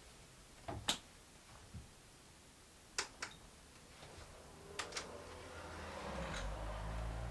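Front door lock and handle clicking in three pairs of sharp clicks a couple of seconds apart as the door is unlatched, then the door opens and low outdoor background noise swells in near the end.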